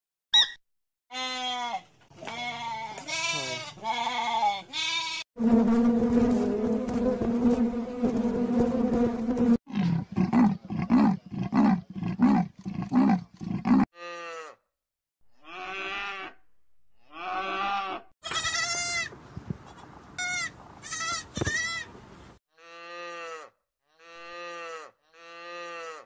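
Calves bawling: a string of separate calls, broken in the middle by one long steady low call and then a few seconds of short, rapid grunting calls.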